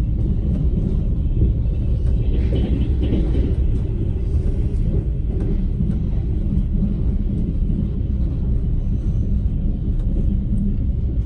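Moving train running along the rails, a steady low rumble from the wheels and carriage.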